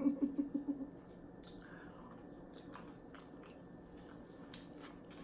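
A person chewing a mouthful of food close to the microphone, a hummed "mm" at first, then scattered wet clicks and smacks of the mouth.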